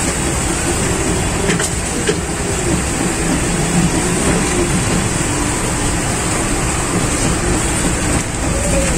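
Steady loud rumbling din of a busy street food stall, with faint voices beneath.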